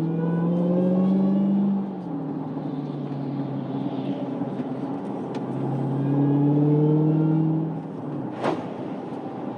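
Dodge Challenger SRT Hellcat Redeye's supercharged 6.2-litre Hemi V8 pulling under throttle, with a faint higher whine rising with it. It eases off about two seconds in, pulls again from about five and a half seconds, and eases off once more near eight seconds. A single sharp click comes near the end.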